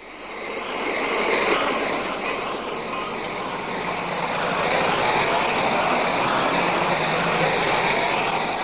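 Vehicle noise: a steady rumble and hiss of traffic that swells in over the first second or so, with a few faint sliding whines in the middle.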